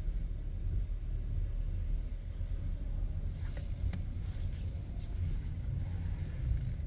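Low, steady rumble of a car driving slowly, heard from inside the cabin, with a few faint clicks about halfway through.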